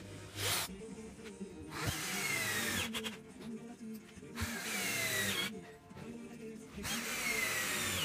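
Electric drill driving screws into wooden log slices in several short runs, the motor's whine falling in pitch during each run. Background music plays underneath.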